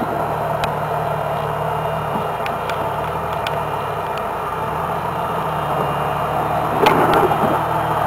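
Jeep Wrangler's engine running low and steady at crawling speed over boulders, with a few sharp clicks and a short crunch of tyres on rock about seven seconds in.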